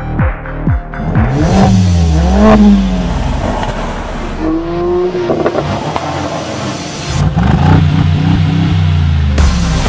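Mercedes-AMG engines revving at the exhaust: two quick revs rising and falling, a short rev a few seconds later, then the engine held at a steady note near the end, in cut-together takes. A pulsing electronic beat plays in the first second.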